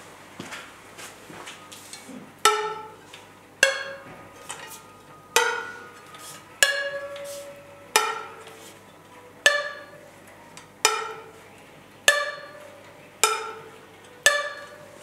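Spokes of a Giant SLR 0 wheel plucked one after another by hand: about ten sharp twangs, each ringing out briefly, a little over a second apart, after a few soft finger clicks. The notes differ from spoke to spoke. The uploader takes this as the sign of the wheel's deliberately uneven spoke tension at rest, which he says evens out under load when riding.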